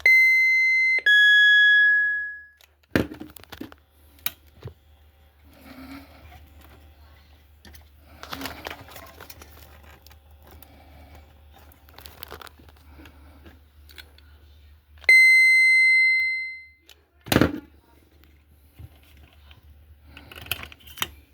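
Electronic CB key-up tones from a PDB-1 sound unit: a two-note doorbell ding-dong at the start, then about fifteen seconds in a single ping that rings down, the 'Mr Jiggs' ping. A sharp click comes a second or two after each tone.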